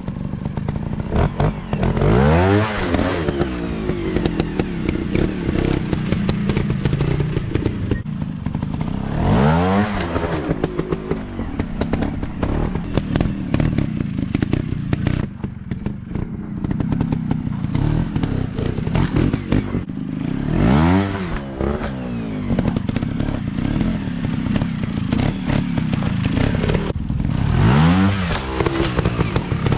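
Dirt bike engine running, revving up in four quick rising bursts several seconds apart, with scattered knocks and clatter in between.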